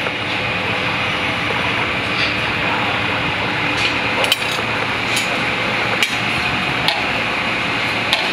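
Metal ladle and fork clinking and scraping in a steel frying pan of pappardelle as the pasta is worked for plating, about six sharp clinks, most of them in the second half. A steady background noise runs under them throughout.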